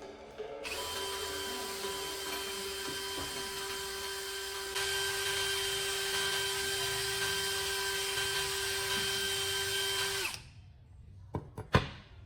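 Small electric power tool motor spinning at a steady speed, starting about half a second in, getting louder about five seconds in and stopping about ten seconds in. Two sharp clicks follow near the end.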